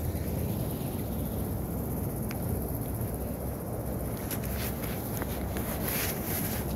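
Steady low rumble of street noise and wind on a phone microphone while walking. In the second half come brief rustles and scrapes from the phone and bag strap being handled.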